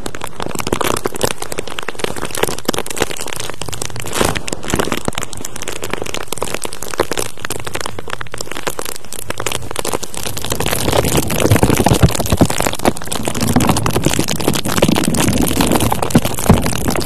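Close-miked ASMR ear-cleaning sounds: dense scratching and crackling right against the microphone, thick with small clicks. It gets busier and louder about two-thirds of the way in.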